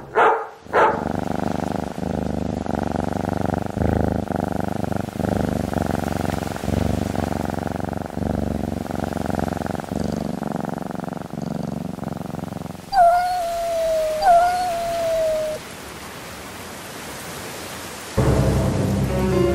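A Persian cat purring steadily, then two short falling meows a little over a second apart. Near the end, eerie music starts.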